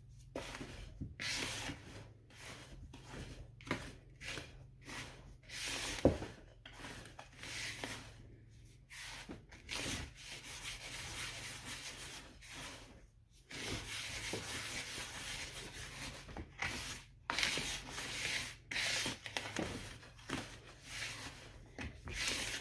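Hands rubbing and squishing a dry, powdery shower-steamer mix to work colourant through it. Irregular gritty rubbing strokes with short breaks between them.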